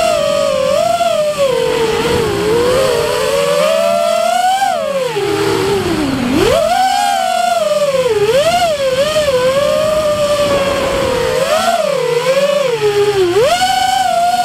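Electric motors and propellers of an FPV quadcopter whining. The pitch rises and falls constantly with the throttle, with a deep dip about six seconds in.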